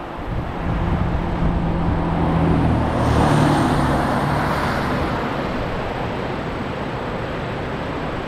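A motor vehicle passing by: a low engine hum with tyre rush that swells to a peak about three and a half seconds in, then fades away.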